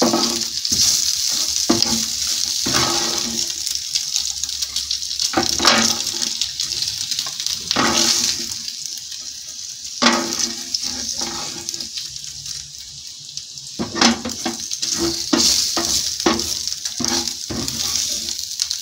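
Bacon sizzling in a hot grill pan, with scrapes and knocks of a spatula against the pan as the pieces are lifted out.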